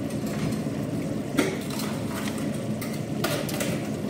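A few light clicks and taps of kitchen utensils over a steady low hum.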